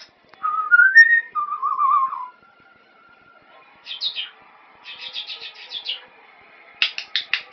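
Pet parrot whistling: a rising whistle that climbs in steps, then a warbling whistle. A few short high chirps follow, then a quick run of chirps lasting about a second, and several sharp clicks near the end.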